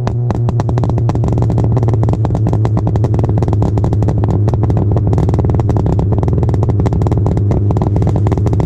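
Straight-piped Kia Rio running, its exhaust crackling and popping in a rapid, irregular stream over a steady low engine drone.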